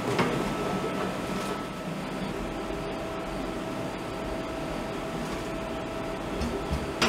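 Steady hum of shipboard machinery and ventilation in a waste-processing space, with a steady whine over it, and a short clunk near the end.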